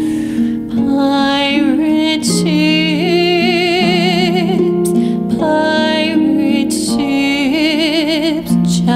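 A woman singing a gentle lullaby, holding long notes with wide vibrato over a soft plucked-string accompaniment.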